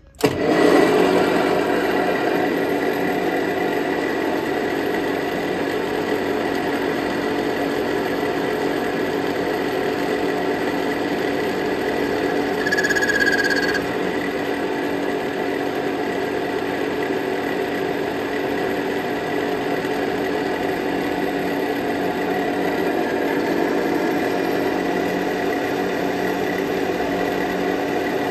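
Daiwa DM-3H engine lathe switched on and running steadily, its headstock gears giving a steady whine as a turning tool takes a test cut on a spinning metal bar. A brief higher-pitched squeal about 13 seconds in.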